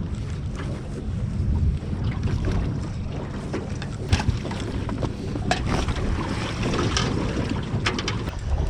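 Wind rumbling on the microphone aboard a small boat at sea, with water sloshing and a few sharp knocks against the hull.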